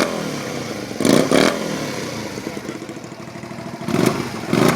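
Honda Varadero 125's liquid-cooled 90° V-twin running without its silencer, revved in short throttle blips about a second in and twice near the end, dropping back to idle between them.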